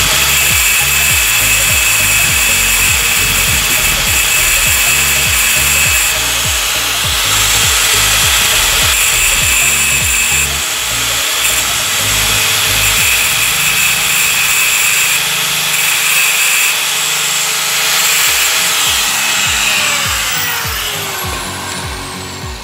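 Angle grinder fitted with a thin cutting disc running and grinding on a motorcycle clutch housing, a steady high motor whine over rough grinding noise. Near the end it is switched off and the whine falls in pitch as the disc spins down.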